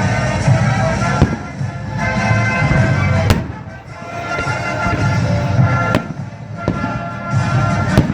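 Fireworks going off, a dense crackle with four sharp bangs spaced a couple of seconds apart, over music.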